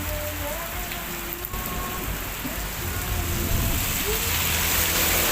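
Heavy rain pouring steadily onto surfaces, growing louder a few seconds in. Faint wavering pitched tones sound underneath.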